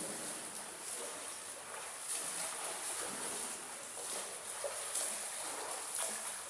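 Water splashing from a swimmer's strokes in an indoor pool, a continuous wash with a few louder splashes.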